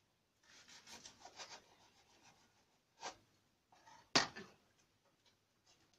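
Kitchen knife sawing through a crisp-crusted grilled tortilla sandwich in a few quick scraping strokes, followed by sharp knocks of the knife against the cutting board; the loudest knock comes a little past four seconds in.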